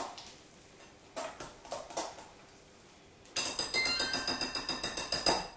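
Wire whisk mixing a batter of eggs, cream and goat cheese in a glass bowl. A few separate taps come first; then from about three seconds in there are two seconds of fast, steady whisking strokes clinking against the glass.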